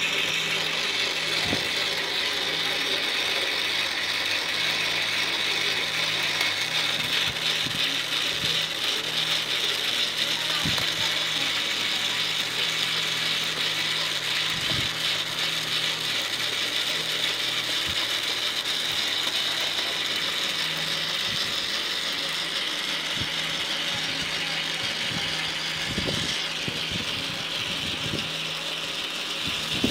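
Small electric motor driving a homemade plastic model engine: a steady, fast ratcheting clatter from the turning crankshaft, gears and pistons, with a few louder clicks along the way.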